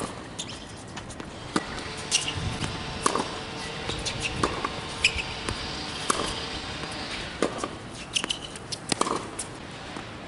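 Tennis ball being struck by racquets and bouncing on a hard court during a forehand rally: a string of sharp hits and bounces at irregular intervals, mixed with short squeaks from shoes on the court surface.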